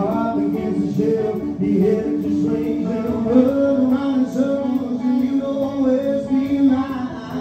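Live band music: a male lead singer sings over acoustic guitar, bass guitar and drums.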